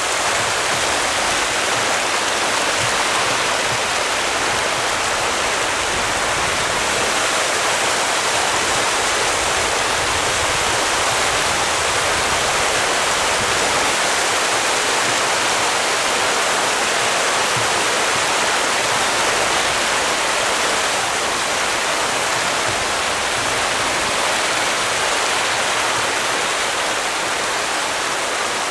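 A mass of tra catfish thrashing at the surface of a pond in a feeding frenzy: dense, steady splashing.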